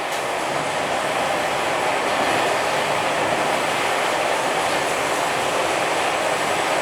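Ride noise inside a Schindler 5500 traction elevator car travelling up: a steady rushing hum that builds over the first second or so as the car gets up to speed, then holds even.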